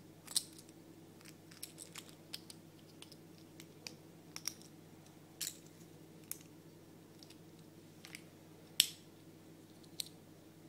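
Small plastic toy padlock handled in the fingers, its hinged case snapped open and shut: a string of sharp plastic clicks and taps, loudest about half a second in and again near the end. A low steady hum runs underneath.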